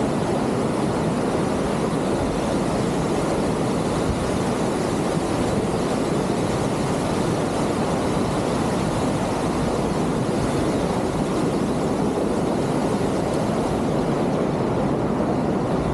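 Steady roar of Vernal Fall: river water rushing over the granite brink and plunging into the gorge below.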